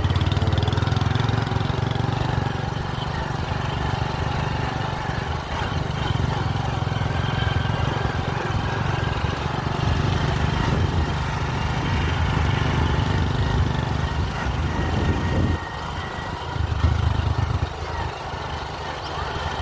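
An engine running steadily with a low, rough rumble, dropping away briefly near the end and then coming back.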